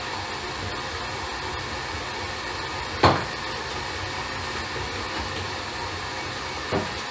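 Electric stand mixer running with a steady whir while it kneads a sticky dough. A sharp knock comes about three seconds in, and a lighter one near the end.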